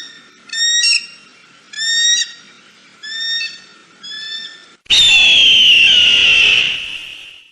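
Eagle calls: five short, high piping calls about a second apart, then a long scream that falls slowly in pitch for about two and a half seconds and fades.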